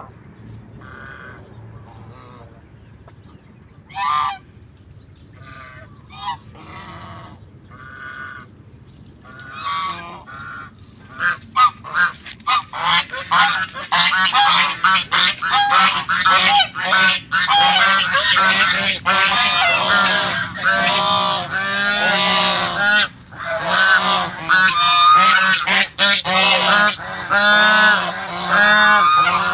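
A flock of domestic geese honking: scattered single calls at first, then from about a third of the way in the whole flock calls loudly and without pause.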